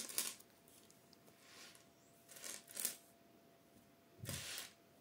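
Faint handling noise: a few short, soft rustles and scuffs as crochet thread is pulled out and laid across a tabletop, the loudest about four seconds in.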